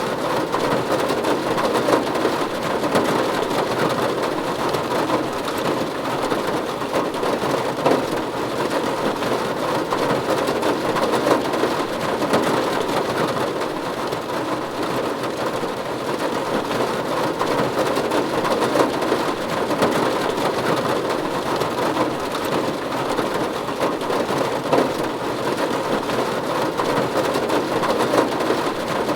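Steady rain drumming on a roof, a dense even patter with scattered individual drop hits.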